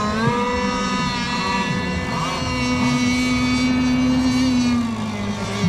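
Several radio-controlled racing boat engines running at once: a steady, high whine with small rises and falls in pitch.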